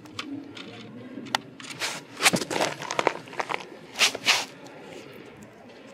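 Goffin cockatoo chewing on something it has picked up, with irregular crunching and crackling; the loudest crunches come in clusters about two, three and four seconds in.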